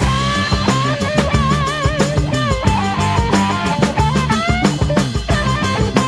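Instrumental psychedelic rock passage: an electric lead guitar plays a melody with wide vibrato and bends over a bass line and a full drum kit keeping a steady beat.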